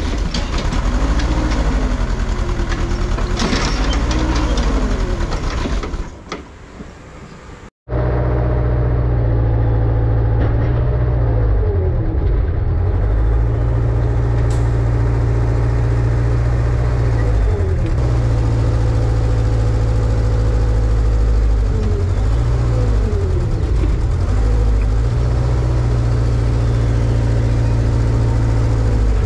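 Kubota KX161 mini excavator's diesel engine running while the hydraulics are worked, its note repeatedly sagging and recovering under load; the engine is short of power. The sound goes quieter about six seconds in, breaks off briefly, then comes back louder.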